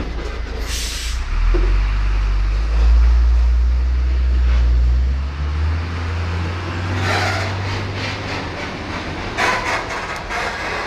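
Truck engine running with a deep drone that grows louder about a second and a half in and eases off after about five seconds. Several short hissing bursts come through, one near the start and others in the second half.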